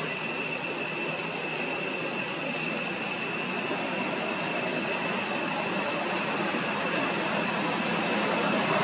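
Steady outdoor ambience: a constant high-pitched insect drone over an even hiss, growing a little louder near the end.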